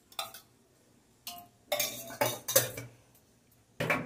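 Metal spoon clinking and scraping against a metal mixing bowl in a run of short bursts, loudest near the end, as melted ghee is spooned onto flour.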